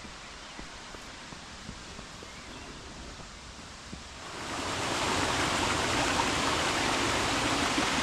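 Quiet outdoor background with a few faint ticks, then about four seconds in the steady rush of river water tumbling over a small rocky cascade comes in much louder and holds.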